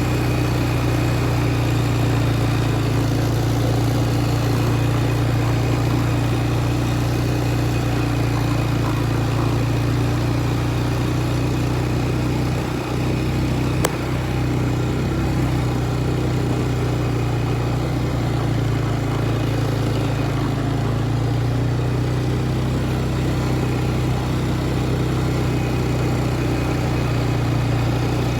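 A vehicle's engine running steadily as it drives, with a single sharp click about halfway through.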